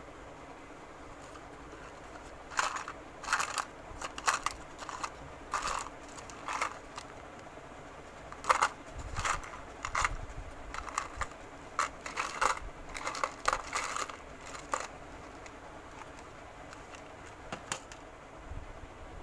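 Hands handling a small idol's crown and dress: irregular bursts of crinkling and rustling with small clicks, starting a few seconds in and stopping about three-quarters through, over a steady low hiss.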